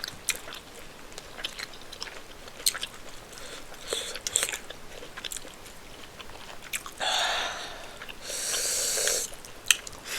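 Close-miked eating sounds of rice and spinach stew with chicken: wet chewing with scattered mouth clicks and smacks, two longer breathy sounds about seven and eight and a half seconds in, and a sharp click near the end.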